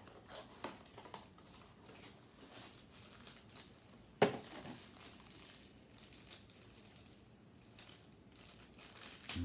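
Crinkling and rustling of a mystery-mini blind-box package being opened by hand, with small scattered clicks and one sharp click about four seconds in.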